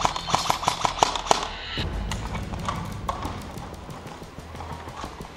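Airsoft electric M4 rifle firing a quick string of sharp shots, about five a second, for nearly two seconds, then stopping. Fainter scattered clicks and movement noise follow.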